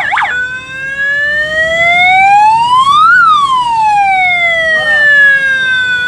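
Electronic siren horn made for motorbikes, bench-tested off a battery. A fast yelping warble breaks off just after the start. Then comes one slow wail, rising in pitch for about three seconds and falling back over the next two or three, and it cuts off suddenly near the end.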